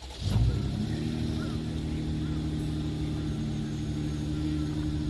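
Car engine starting with a loud catch, then settling into a steady idle.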